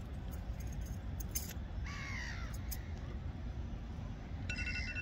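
A crow caws once about two seconds in, over a steady low rumble of wind on the microphone. Near the end a steady electronic alarm tone starts.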